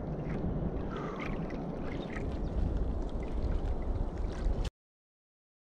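Steady wind on the microphone and water sloshing around a small outrigger canoe on the open sea, cutting off abruptly to silence about four and a half seconds in.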